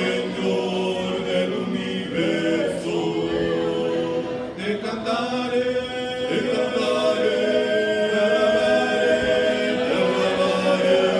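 A congregation singing a worship song together, many voices holding long notes.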